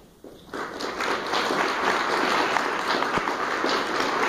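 Audience applauding: the clapping starts about half a second in and quickly builds to a steady, dense applause.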